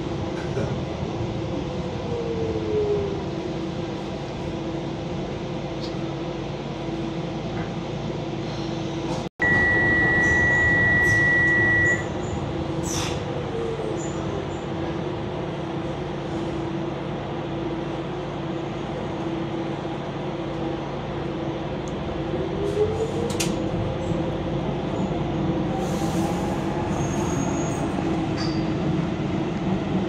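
Docklands Light Railway train running, heard from inside the car: a steady hum and rail noise, with a motor whine that glides up and down in pitch as the train speeds up and slows. About nine seconds in, the sound cuts out for an instant, and then a loud steady high beep lasts about two and a half seconds.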